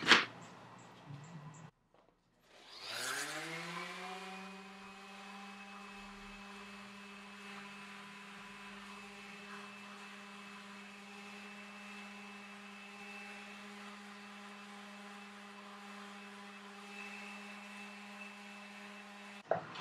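DeWalt random orbital sander starting up about three seconds in, its motor rising in pitch for about a second, then running steadily while it sands the saddle's foam. It stops just before the end.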